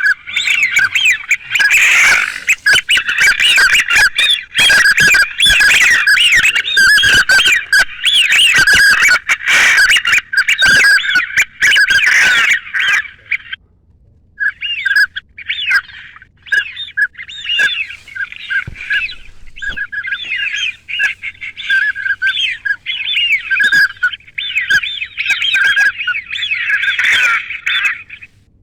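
A dense chorus of ducks calling over one another in quick, overlapping squawks, with a short break about halfway through.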